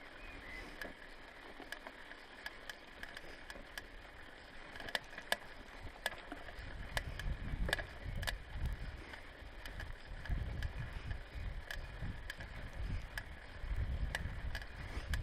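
Bicycle ridden over a bumpy grass path: an uneven low rumble of tyres and wind on the microphone, with scattered sharp clicks and rattles from the bike.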